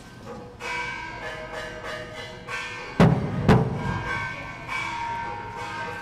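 Temple ritual percussion: repeated ringing metal strikes, bell- or gong-like, with two heavy drum beats about half a second apart around three seconds in.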